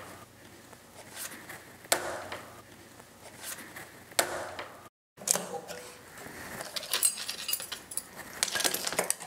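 A few sharp knocks about two seconds apart, then, after a brief break, a busy run of light metallic clinking and jingling as small wire spring clamps are handled and snapped onto a moulding miter.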